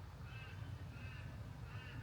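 A bird giving a series of short, hoarse, arched calls, about one every 0.7 seconds, over a steady low rumble.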